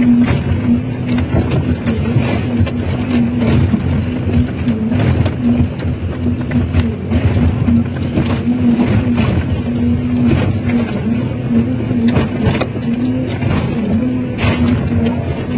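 Hydraulic excavator running under load, its engine and hydraulics giving a steady drone, while its demolition shear crushes and tears a car body, with irregular crunches and scrapes of sheet metal.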